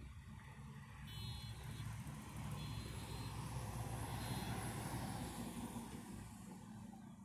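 A semi tractor-trailer passing close by on the highway. Its engine and tyre noise builds to a peak about four to five seconds in and then fades, over a steady low rumble of other passing traffic.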